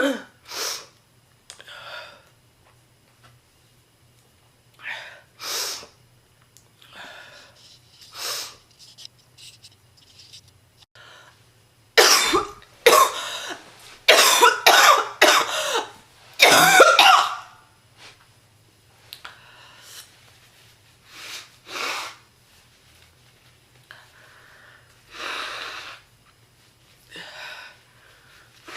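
A woman's deep, chesty smoker's cough, made much worse by illness: single coughs every second or two, then a loud fit of rapid hard coughs lasting about five seconds midway, then more scattered coughs and a long breath.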